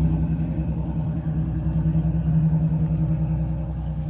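The yacht's twin diesel inboard engines running steadily in gear, a deep rumble with a strong low hum that sounds like a herd of dump trucks. The rumble eases slightly near the end.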